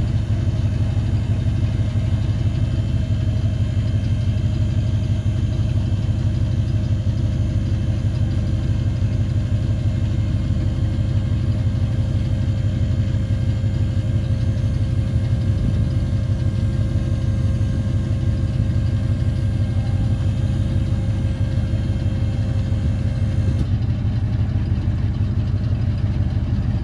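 1980 Ford F350 dump truck with its gas 400 cubic-inch V8 idling steadily while the electric-hydraulic pump raises the dump bed, a thin whine over the engine. The whine stops near the end as the bed nears full tilt, leaving the idle.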